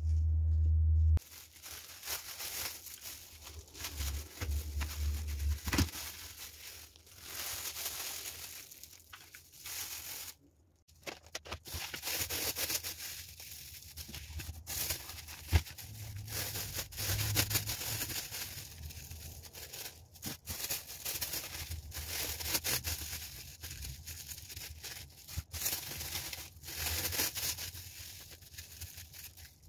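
Thin plastic bags and cling film crinkling and rustling in the hands as salmon steaks are handled and bagged, with many small crackles and one short pause midway. A low hum cuts off about a second in.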